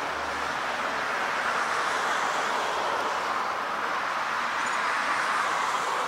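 Steady outdoor background noise: an even, unbroken hiss with no distinct bird call standing out.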